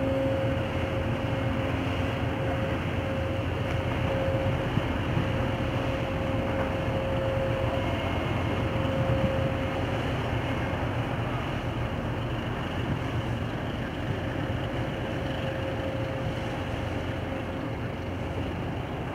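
Diesel engine of a purse-seine fishing vessel running as it passes close and heads out of the harbour: a steady low rumble with a hum that fades about two-thirds of the way through as the vessel draws away.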